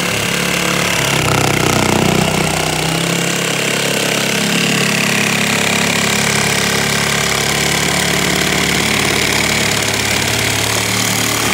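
Makita DJR186Z cordless reciprocating saw, a brushed-motor 18 V model, running at speed as its blade saws steadily down through a stack of 6 mm plywood sheets.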